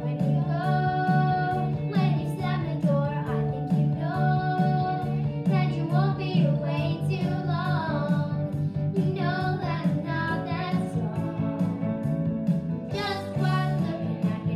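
Two young girls singing together over backing music with guitar and a steady beat.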